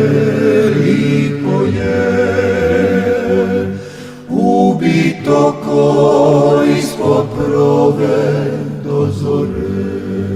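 Background music: the closing bars of a song, with long held chords that change every second or so and dip briefly about four seconds in.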